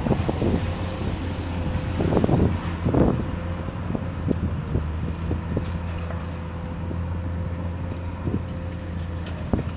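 Scrap metal being handled by a crane at the quayside: steady machinery drone with a faint steady whine, and irregular clanks and crashes of scrap metal, loudest about two and three seconds in.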